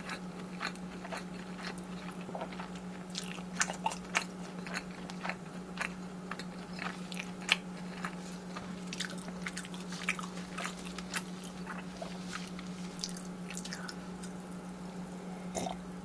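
Close-miked eating of fried Korean snack food, with irregular crisp crunches and wet chewing, over a steady low hum.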